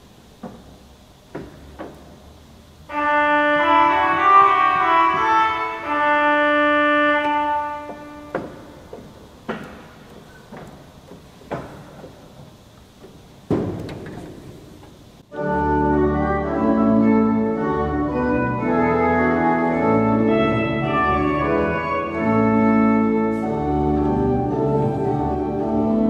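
Fasen pipe organ with mechanical stop action: stop knobs click as registers are drawn, and a brighter, thinner registration sounds a held chord about three seconds in for about five seconds. After more stop clicks, a fuller registration with deep bass plays from about fifteen seconds in, changing the organ's tone colour.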